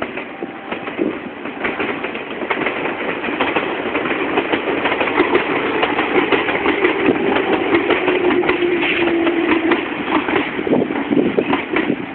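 Meitetsu electric train passing over a level crossing, its wheels clattering rapidly over the rail joints and growing louder over the first few seconds. A humming tone runs under it through the middle, sinking slightly in pitch.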